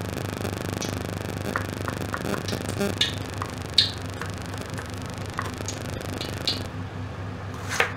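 Soft synthesizer background music, with scattered light taps and clicks of chopped onion and garlic pieces being gathered by hand on a wooden cutting board.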